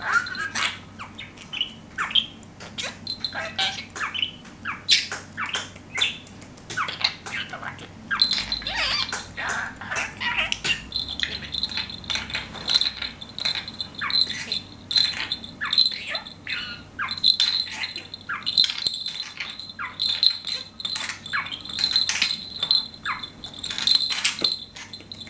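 Budgerigar chattering and warbling in quick chirps and sweeping notes. From about eleven seconds in, a small metal jingle bell on its toy rings repeatedly as the bird knocks it.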